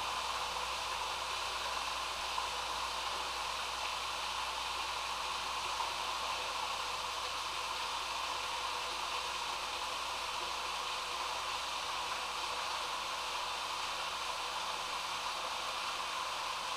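Steady rushing hiss of water in a storm drain pipe, with a faint low hum beneath.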